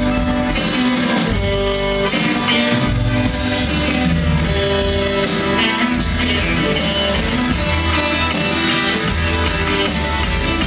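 Live band playing: acoustic guitar, mandolin, upright bass, electric guitar and drum kit together, with a steady drum beat under sustained guitar notes.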